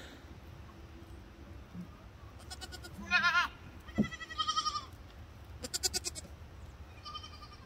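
Young fainting goats bleating: a quavering bleat about three seconds in, a second right after it, a rapid stuttering one about a second later and a fainter one near the end.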